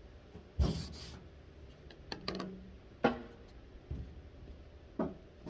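A few faint, scattered knocks and rubbing noises over a low background hum, the first and longest about half a second in, then single knocks every second or so.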